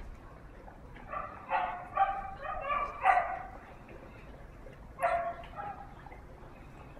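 Husky-type puppies yipping and barking in play: a quick run of short high yips about a second in, then a couple more near five seconds.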